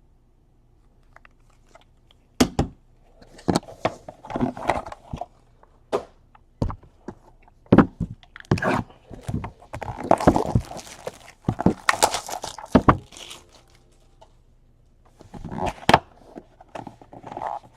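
Trading cards and their packaging being handled and opened by hand: an irregular run of sharp taps and clicks mixed with short bursts of crinkling and rustling, starting about two seconds in.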